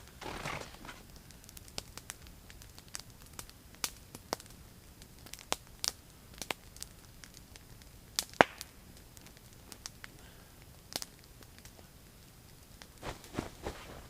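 Wood fire crackling, with sharp, irregular snaps and pops, the loudest about eight seconds in.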